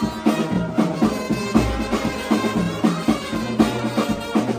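Music with a steady beat and sustained instrumental tones.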